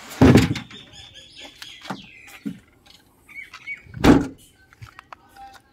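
Two loud thumps about four seconds apart as the boot of a Maruti Suzuki Vitara Brezza is shut: first the boot floor board dropped back over the spare wheel, then the tailgate slammed closed. Birds chirp in between.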